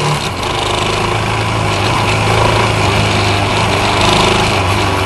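Royal Enfield Himalayan's single-cylinder engine running steadily, with a rattle from the front of the bike. The rattle comes from the headlight loose in its holder, where a small rubber piece is missing.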